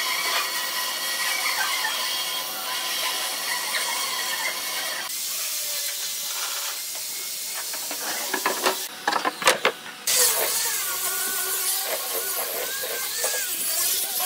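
A steady high-pitched hiss, then a few sharp knocks about nine seconds in, then an angle grinder with a sanding disc starts sanding a pine tabletop, its motor whining steadily with a pitch that wavers under load.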